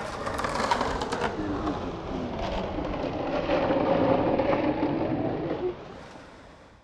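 Skateboard wheels rolling over concrete, with a murmur of voices behind. It fades out near the end.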